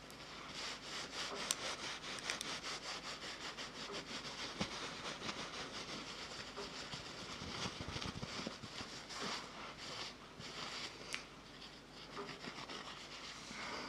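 Close-miked rubbing or scratching, a fast run of short repeated strokes that carries on steadily, as in ASMR trigger sounds.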